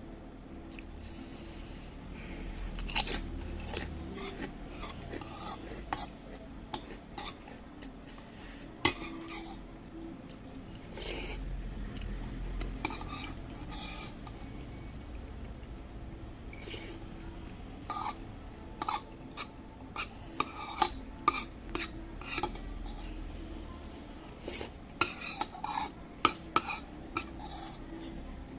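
Cutlery clinking and scraping against a bowl at irregular intervals while someone eats, with quieter eating sounds between the clinks; the clinks come thickest about two thirds of the way through and near the end.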